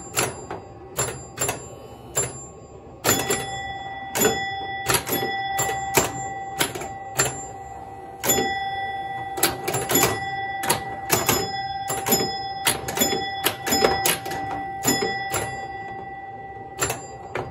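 1968 Williams Lady Luck electromechanical pinball machine in play: rapid, irregular sharp clacks of flippers, bumpers and relays, with bell tones ringing after many of them. A steady tone runs under most of it.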